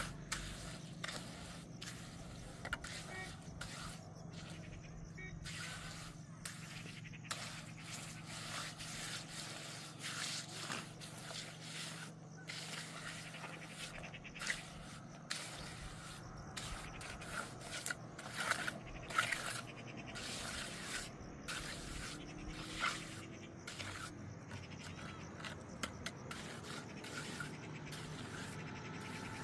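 Irregular scraping and knocking strokes, as of hand work with tools or materials, over a low steady hum.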